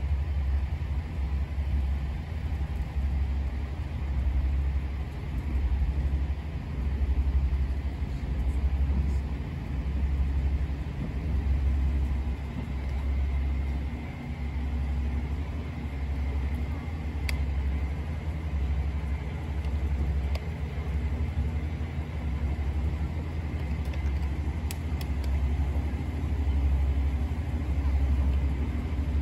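Railway turntable slowly rotating with a diesel locomotive aboard: a steady low rumble that rises and falls, with a faint high whine joining about halfway through.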